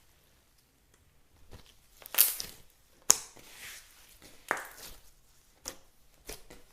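Slime being squeezed and pulled apart by hand, giving a string of sticky pops and crackles, about six separate bursts with short pauses between them.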